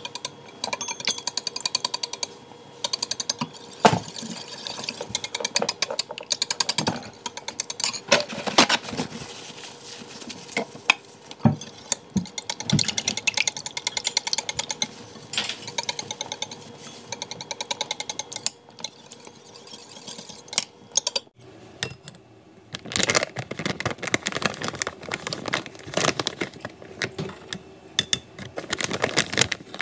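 Wire whisk beating batter in a ceramic bowl: a fast run of clicks as the tines hit the bowl. After a break about 21 seconds in, a metal ladle scrapes and presses the mixture through a wire-mesh strainer.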